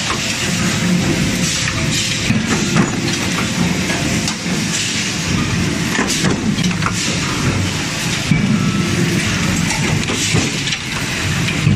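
Forging-line trimming press and shop machinery running with a loud, steady din, broken by irregular sharp metal clanks and knocks.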